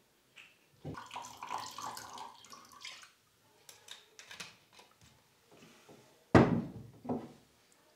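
Liquor poured from a glass bottle into a drinking glass, gurgling for about two seconds, then a few small taps. About six seconds in, the bottle is set down on a wooden dresser with a loud knock, followed by a lighter one.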